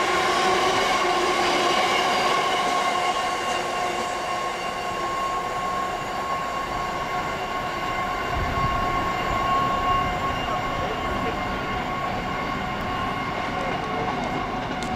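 Train running past on the line, a steady whine of several held tones over the rumble of the running gear.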